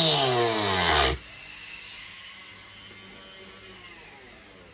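Handheld power tool running hard, its pitch dropping steadily as it bogs under load, then let go about a second in and winding down quietly over the next few seconds.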